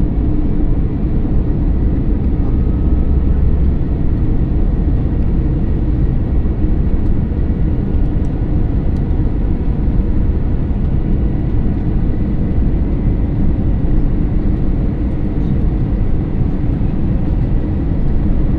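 Steady cabin noise inside an Airbus A321neo LR airliner: engine and airflow rumble, level and unchanging throughout.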